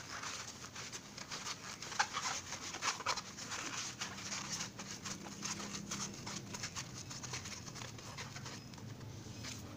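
Hands rubbing, squeezing and pressing a foam sponge element onto the rubber-rimmed frame of a Kijang Innova air filter: a continuous string of short scratchy rustles.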